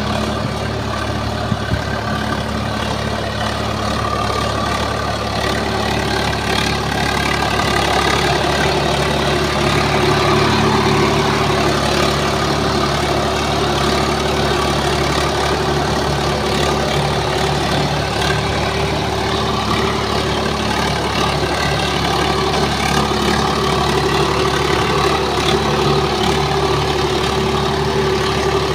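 Swaraj 742 FE tractor's three-cylinder diesel engine running steadily while driving a rotavator through the field.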